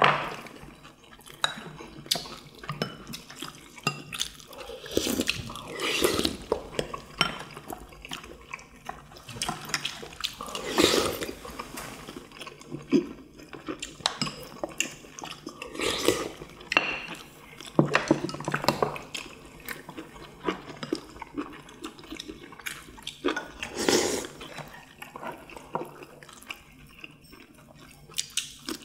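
Several people eating at a table: wet chewing and slurping in irregular bursts, with chopsticks and spoons now and then clicking against ceramic bowls and plates.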